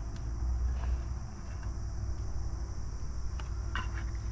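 Insects trilling steadily in a high, even band over a low rumble, with a few light clicks about three and a half seconds in.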